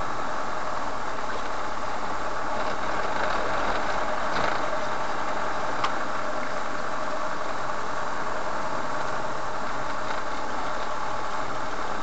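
Car engine running steadily with road and cabin noise, heard from inside the car, with a couple of faint clicks about halfway through.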